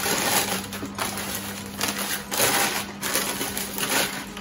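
Tissue paper rustling and crinkling in several short irregular bursts as it is pulled out of a cardboard shoe box.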